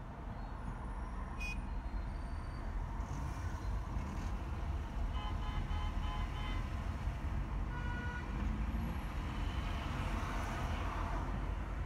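Steady low rumble of a car driving in city traffic, building slightly. A run of short beeps about five seconds in and a brief tone near eight seconds, from horns or vehicle warning beeps.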